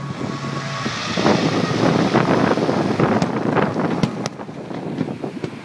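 Fireworks bursting overhead: a dense rush of crackling from about a second in, with several sharp bangs between about three and four and a half seconds in.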